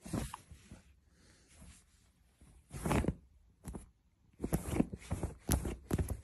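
Rustling and scratching on a duvet cover as a hand plays with a cat on a bed. There is a louder rustle about three seconds in, then quick scratchy taps from about four seconds in.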